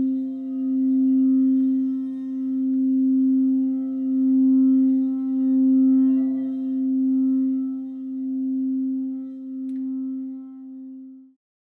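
Quartz-crystal singing bowl ringing on one sustained low tone with faint higher overtones, its loudness swelling and dipping in slow pulses about once a second. It fades and stops just before the end.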